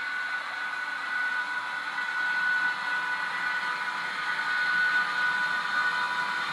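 Model train running on the layout track: a model locomotive hauling passenger coaches, its motor giving a steady whine over the hiss of wheels on rail, growing gradually louder as it passes.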